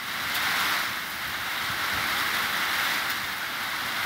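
Steady rush of heavy rain and wind, slightly swelling and easing.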